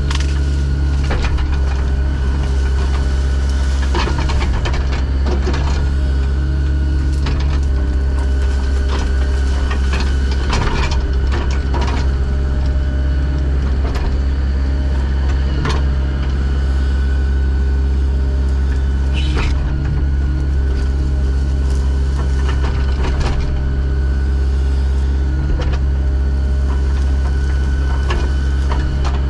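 Heavy construction equipment engine running steadily at a constant speed, with scattered metallic clanks and knocks over it.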